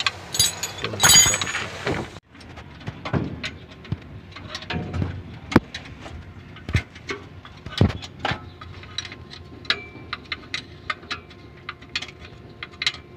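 Scattered metallic clinks and knocks of hand tools and bolts at the transmission bell housing under the van, with a loud rustling burst in the first couple of seconds.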